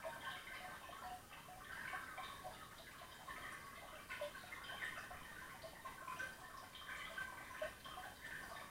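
Koi pond heard underwater: a faint, steady crackle of many small ticks and pops from air bubbles rising through the water.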